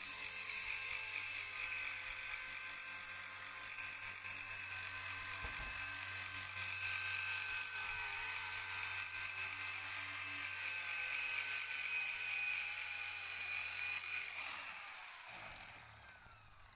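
Blade 200 SRX electric RC helicopter in flight: a steady high-pitched whine from its motors and drive with the rotor whirr. Near the end it winds down and fades as the helicopter lands and spools down.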